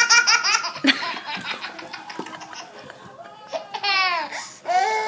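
Baby laughing: a quick string of laughs at the start, then more laughs with falling pitch from about three and a half seconds in.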